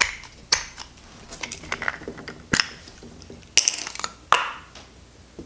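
Sharp plastic clicks and snaps from a 35mm film canister being opened and the film cassette taken out and handled, about half a dozen in all with a quick cluster a little past the middle.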